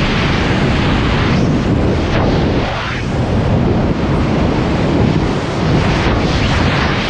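Freefall airstream rushing across a skydiving camera's microphone: a loud, steady wind noise that buffets the mic.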